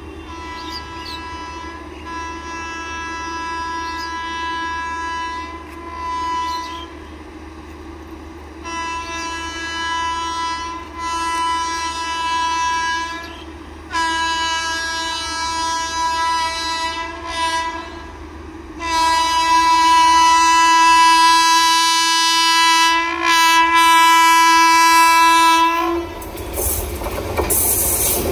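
Indian Railways electric locomotive sounding its horn in four long blasts that grow louder as the express approaches. Near the end the train reaches the microphone and its passing rushes in as a loud rumble and wheel clatter.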